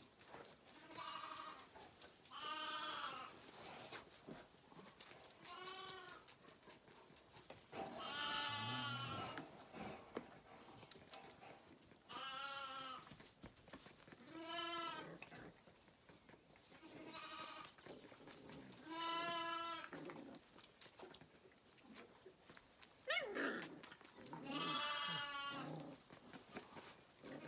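Lambs bleating over and over at bottle-feeding time, a call about every two seconds, each lasting under a second.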